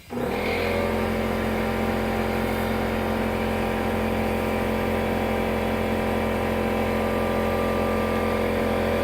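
Air compressor switching on abruptly and running steadily with an even motor hum, pumping air to inflate a freshly plugged motorcycle tyre.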